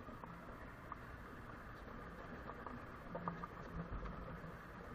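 Motorcycle rolling slowly downhill over a loose gravel and stone track with little throttle, its engine a faint low hum, with scattered small clicks and rattles.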